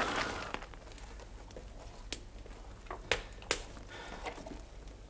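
Quiet room tone with a few short sharp clicks, the clearest three coming between about two and three and a half seconds in.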